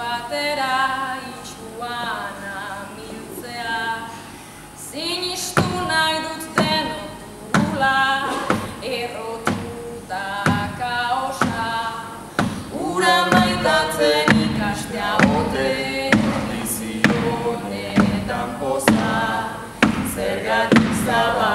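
A small a cappella vocal group of women's and men's voices singing in harmony. About five seconds in, a steady beat of sharp knocks joins the singing.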